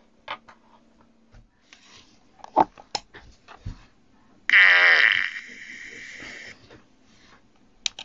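A sound effect from the Arduino puzzle box's small speaker: a loud buzzy blast about halfway through, falling in pitch, then holding on more quietly for a second or so before stopping. A few soft clicks come before it, and a sharp click sounds near the end as one of the box's switches is pressed.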